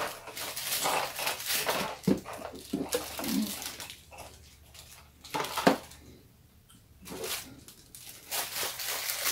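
Plastic cracker sleeve crinkling and round crackers clattering into a plastic snack tray as they are shaken out, a run of short crackles and clicks with a quieter stretch in the middle.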